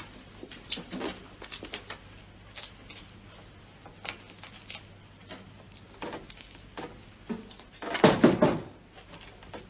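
Objects being handled around a large case: scattered small clicks and knocks, then a louder scraping clatter about eight seconds in, over a low steady hum.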